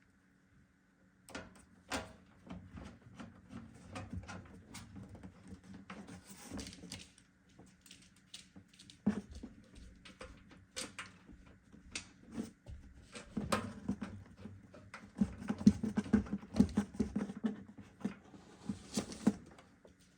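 Irregular clicks, taps and rattles from screws, a screwdriver and parts being handled in a PC case while the power supply is fitted. The knocks are sparse at first and come thick and fast in the last few seconds.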